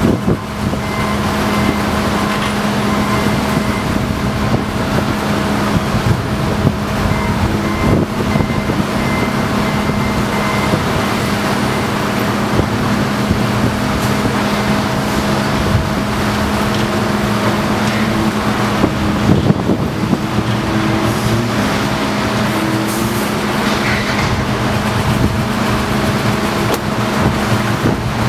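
Steady engine drone from railroad maintenance-of-way machines: the rail crane and the track machine beside it. A low hum holds throughout, a higher hum wavers in and out past the middle, and a few light clanks are heard.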